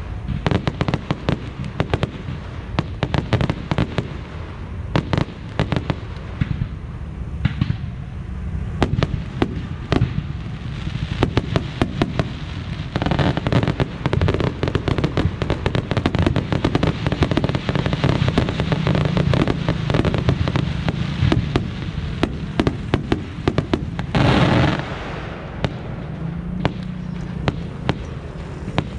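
Fireworks display: a constant run of bangs and pops from bursting aerial shells, coming thicker and faster from about halfway, with one louder blast lasting about half a second near the end.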